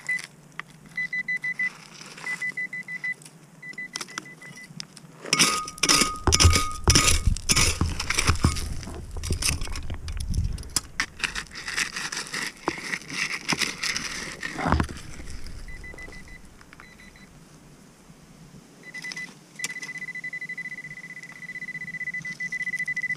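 Handheld metal-detecting pinpointer beeping in short pulses at one high pitch, then holding a continuous tone for the last few seconds: the signal that it is right over buried metal. In between, stones and gravel clatter and scrape as the hole is dug out by hand.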